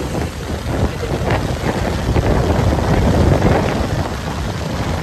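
Strong wind buffeting the microphone: a heavy, gusting low rumble that swells around the middle and eases toward the end.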